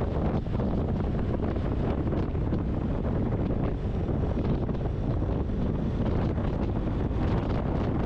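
Steady wind buffeting the microphone of a camera on a moving motorcycle, a low rushing rumble.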